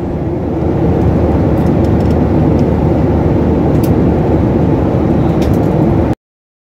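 Jet airliner cabin noise in cruise, heard inside the cabin of a Boeing 737-800: a loud, steady, deep rush of engine and airflow noise. It cuts off abruptly near the end.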